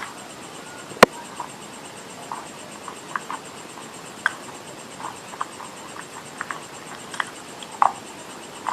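Close-miked chewing and crunching of edible clay: scattered crisp crackles and clicks, with one sharp, loud snap about a second in.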